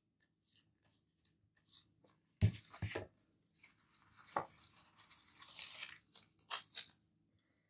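A large sticker book's pages and a sheet of paper stickers being handled on a desk, with sticker paper being peeled. There is a cluster of sharp knocks about two and a half seconds in and a thud a little later. A crisp paper rustle follows, ending in two quick strokes near the end.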